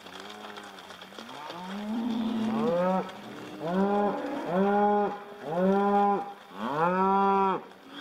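A cow mooing repeatedly: a long call rising in pitch, then four shorter moos in quick succession.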